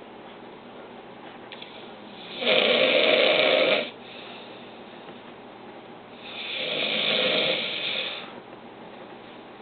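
A man snoring in his sleep: two long snores about four seconds apart, the first louder and starting and stopping abruptly, the second swelling up and fading away.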